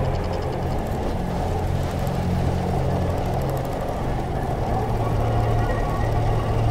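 Skateboard wheels rolling over a hard surface: a steady rumble, with a low droning tone beneath.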